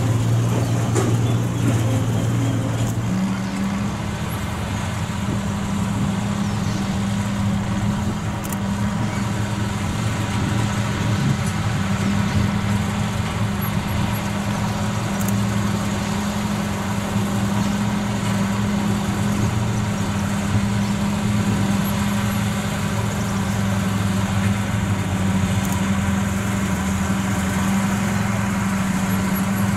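Small diesel locomotive's engine running with a steady low hum as it hauls a single coach; the engine note shifts higher about three seconds in and then holds steady.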